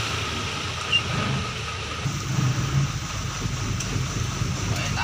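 Steady low rumble of queued trucks and cars idling, under a steady hiss of wind and sea.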